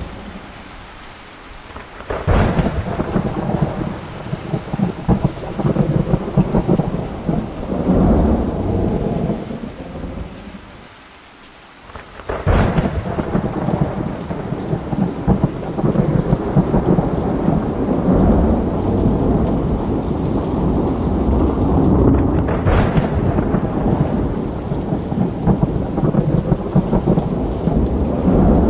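Thunderstorm with steady rain and three thunderclaps about ten seconds apart. Each starts with a sharp crack and rolls on as a long low rumble lasting several seconds.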